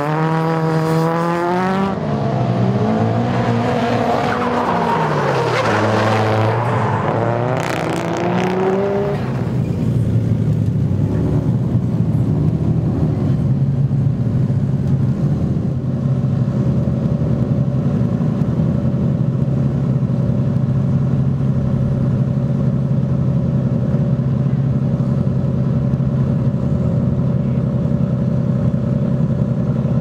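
Nissan S14 Silvia drift car's engine revving up and down through a drift, with tyres squealing, for about the first nine seconds. After that, a steady low engine drone from a car running at constant low revs.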